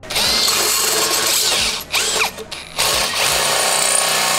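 Handheld power tool running against stainless steel exhaust tubing: a loud, steady rasp that drops off briefly twice.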